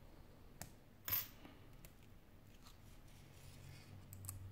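Small phone parts handled by hand: a light click, then one sharp clatter about a second in as a smartphone display panel is set down on the work mat, and a few faint ticks of handling near the end.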